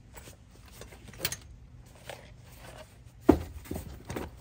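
A hard-cased tool kit being shoved onto a shelf of a truck service-body compartment: a handful of knocks and scrapes, the loudest a sharp knock about three seconds in.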